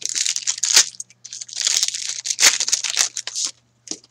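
Hockey cards and thin plastic card sleeves rustling and crinkling as cards are handled and slid into sleeves. The rustling comes in two stretches, the second longer, with a light tap near the end.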